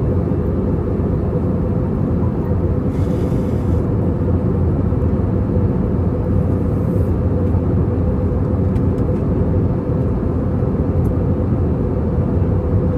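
Steady low cabin drone of an Airbus A320-200 in descent: airflow and engine noise heard from inside the passenger cabin.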